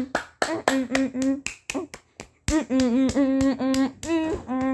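A short voice clip chopped and repeated in quick stutters, a few syllables a second at a steady pitch, each cut starting with a sharp click, with a brief pause about two seconds in.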